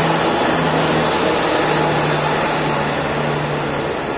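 Diesel engine of a coach bus running steadily as the bus pulls away, its engine note dropping slightly about a second and a half in and slowly fading.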